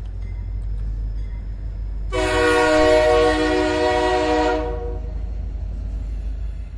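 Train horn sounding one long chord blast of about two and a half seconds, over a steady low rumble.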